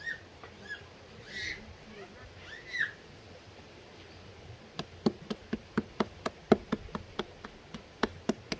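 A knife chopping on a cutting board in an even run of sharp knocks, about three or four a second, starting about five seconds in. Before it come a few short, high squeaking calls from a small animal.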